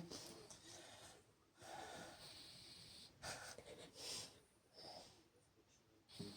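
Faint breathing of a sleeper between snores, with a few soft snorts and wheezing breaths, each short and separate.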